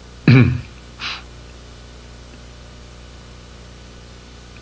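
A man's brief voiced sound, falling in pitch, then a short breath about a second in; after that only a low steady hum.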